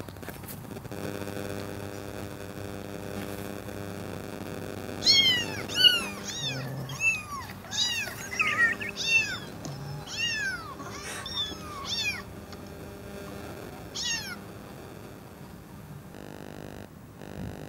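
Kitten meows played from a meowing plush puppy toy: a quick run of about a dozen high mews that rise and fall, some overlapping, starting about five seconds in and lasting about nine seconds.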